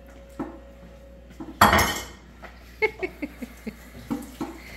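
Kitchen dishes and cutlery being handled: one loud clatter about a second and a half in, then a quick run of lighter clinks and knocks.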